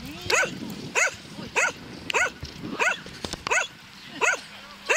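A dog barking over and over, about eight short barks at a steady pace of roughly one every two-thirds of a second.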